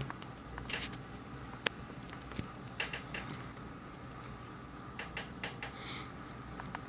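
Light handling noise at a workbench: a scattering of small clicks and short scrapes over a faint steady hum.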